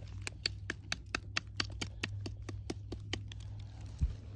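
An old iron hinge being tapped against a rock to knock the caked dirt off: quick sharp clicks, about four a second, stopping about three seconds in. A single low thump comes near the end.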